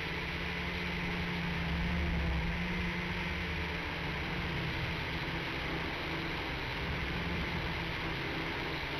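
Motors and propellers of a WLtoys V959 mini quadcopter whirring steadily in flight, picked up by its onboard camera's microphone, a little louder about two seconds in.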